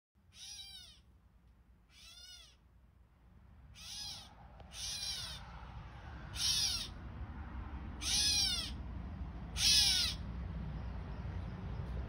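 An animal gives seven drawn-out calls, each rising then falling in pitch, spaced one to two seconds apart and growing louder. A low rumble runs underneath.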